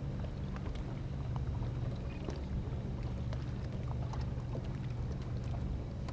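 A boat engine running steadily at low revs, a low even drone, with faint scattered clicks and ticks over it.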